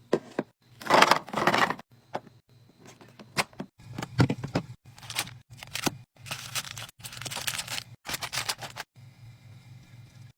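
Items being handled and set into a mini fridge during a restock: irregular rustles of packaging and sharp clicks and clatters. They stop about nine seconds in.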